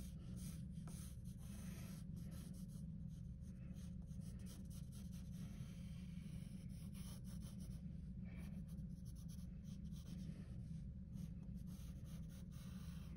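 Faint scratching of drawing strokes on paper, short and irregular, over a steady low hum.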